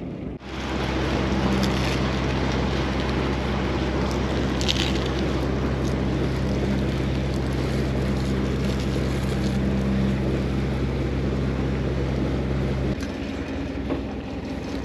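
Fishing boat's engine running with a steady low hum. About thirteen seconds in the hum changes and drops to a quieter, thinner sound.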